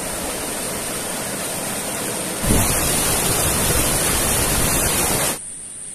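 Rushing river water pouring over boulders in a small cascade: a steady whitewater hiss. It steps up louder a little before halfway and drops off suddenly near the end.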